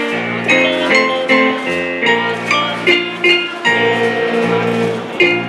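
A student band playing a tune live, with plucked guitar notes and other instruments over a bass line, with notes struck on a steady beat.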